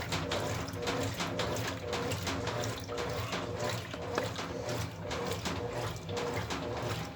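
Brastemp Ative 9 kg top-loading washing machine running its wash cycle: water sloshing and churning in the tub over a low, steady motor hum, with a repeating pattern of strokes.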